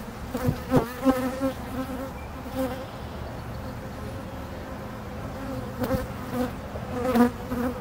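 Honey bees buzzing in large numbers around an opened hive, a steady hum from agitated, upset bees. Individual bees buzz close past the microphone a few times, their pitch wavering, and there are a few light knocks.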